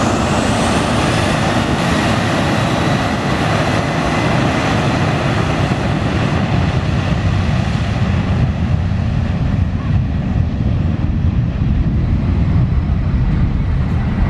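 Boeing 737-800's twin CFM56 turbofan engines running loud as the jet moves along the runway for take-off. A high whine dominates at first, then fades after about eight seconds as the aircraft turns away, leaving a deep rumble that grows toward the end.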